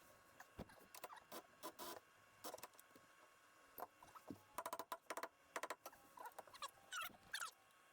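Faint clicks, taps and rattles of tools and metal suspension parts being handled. A quick run of clicks comes about halfway through, and a few short squeaks come near the end.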